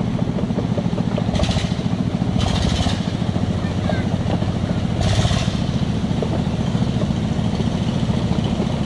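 Dongfeng single-cylinder diesel engine running steadily, a fast low even beat, with a few short hissing bursts over it.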